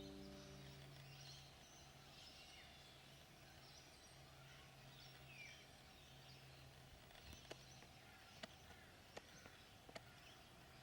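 Faint outdoor ambience with distant birds chirping on and off, and a few soft clicks in the later part; the tail of music fades out at the very start.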